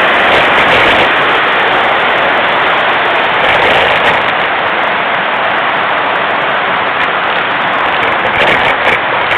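Mountain bike being ridden over a rough forest trail, heard through a handlebar-mounted camera: a loud, even rush of wind and rattling, with a few sharper knocks near the end.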